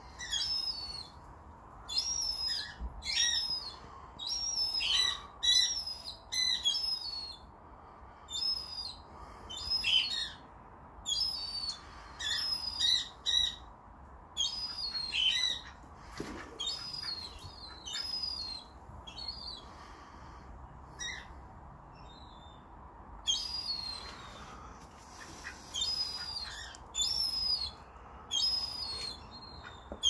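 Young gull calling over and over in thin, high-pitched peeps. The short calls come in quick runs, two to four at a time, with brief pauses between.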